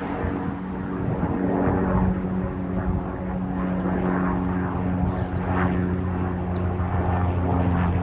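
Bell 206 helicopter flying by, its turbine engine and rotors giving a steady hum of several tones over a rushing noise that grows slightly louder.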